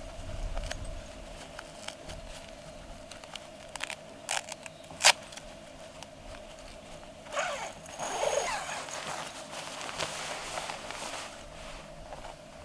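Zipper of a PYKES PEAK mummy sleeping bag being worked: a few sharp clicks and rustles of the nylon shell, then, a little past halfway, the zipper pulled open in a rasping run lasting a few seconds.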